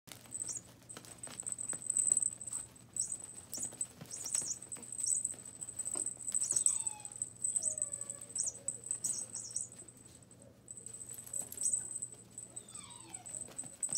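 Yorkshire terrier puppies scampering on puppy pads: a scattered patter of paws and clicks of claws, with a few high, falling whimpers about halfway through and again near the end. A steady faint high-pitched tone runs underneath.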